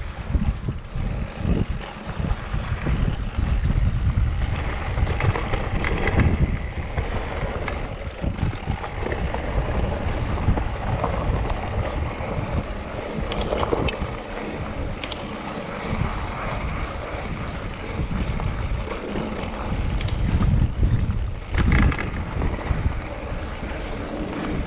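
Wind buffeting the microphone over the rumble of a Marin Rift Zone full-suspension mountain bike's knobby tyres rolling down a rocky dirt trail, with a few short clicks and rattles from the bike over bumps in the second half.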